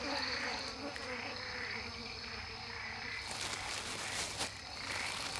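Night-time insect chorus, a steady buzzing drone, with a few faint clicks in the second half.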